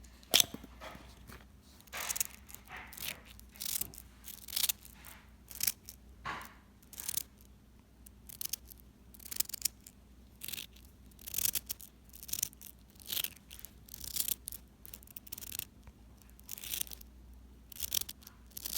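Speks magnetic fidget balls being played with in the hand: short crunchy clicks and snaps as the tiny magnets pull together and are pulled apart, coming irregularly about once a second.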